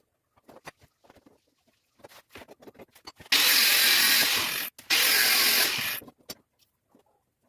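A power tool run in two loud bursts, the first about a second and a half long and the second about a second, with a short break between. Scattered light taps and knocks come before and after.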